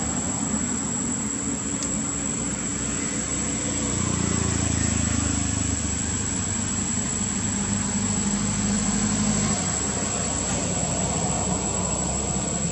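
Steady low engine rumble, swelling about four seconds in and easing off near ten seconds, over a constant high, thin whine.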